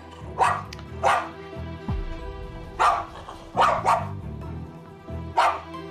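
Small dog barking in an excited, agitated state, about five sharp barks at irregular gaps, an excitement that does not easily die down.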